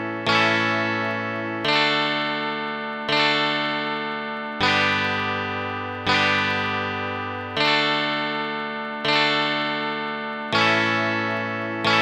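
Chords played on the Heavenly Chords app with a plucked-string sound, one struck about every second and a half, each ringing and fading before the next. The chord changes to a lower one about halfway through and back again.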